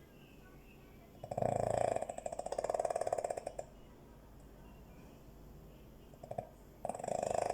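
Dog snoring: two fluttering, rattling snores back to back about a second in, the second one longer, then a brief snort and the next snore starting near the end.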